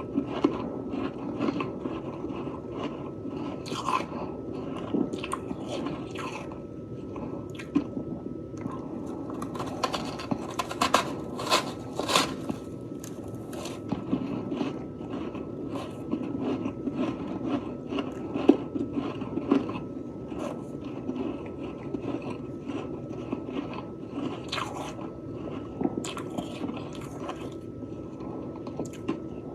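Freezer frost being bitten and chewed close to the microphone: a steady run of irregular crisp crunches, with a cluster of louder ones about eleven seconds in.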